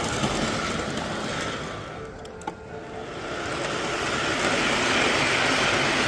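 Model diesel locomotive and its cars running on layout track: a steady rolling rumble with motor hum. It dips briefly about two seconds in, with a single click, then grows louder again as the train runs past close by.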